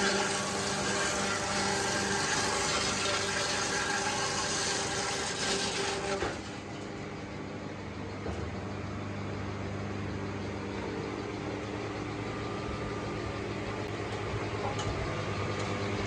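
Sawmill machinery running with a steady hum and a loud, noisy rush over it. The rush cuts off suddenly about six seconds in, leaving a lower engine-like drone.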